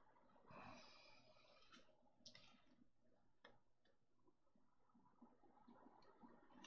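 Near silence with a brief faint rustle and a few faint clicks as small model parts are handled and pushed into place.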